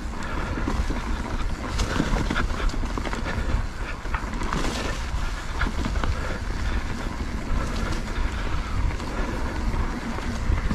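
Mountain bike rolling down a rough dirt trail: the tyres run over dirt and rocks and the bike rattles and knocks over the bumps, with a heavy wind rumble on the microphone.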